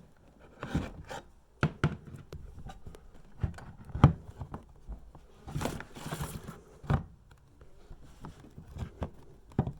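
Irregular handling noises: scattered clicks and knocks with a couple of short rustles in the middle.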